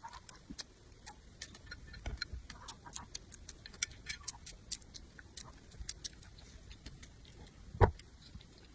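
Close-miked eating sounds: scattered wet clicks and smacks of chewing and lips. There is one louder thump near the end.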